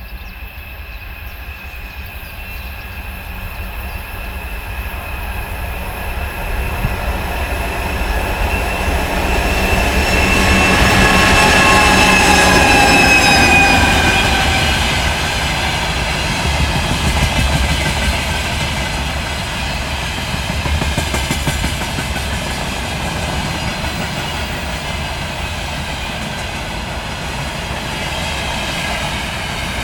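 2TE116 diesel locomotive with 5D49 diesel engines passing. It grows louder to a peak about halfway through, and its whining tones drop in pitch as it goes by. After that come a steady rumble and the clatter of wheels on the rails.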